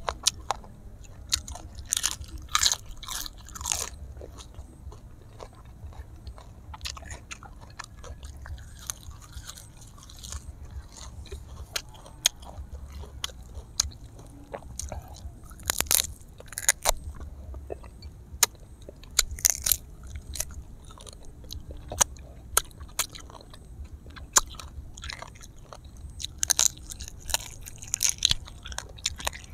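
Close-miked eating: a person biting and chewing grilled duck and raw vegetables, with loud crunchy bites coming in clusters several times and softer chewing between them.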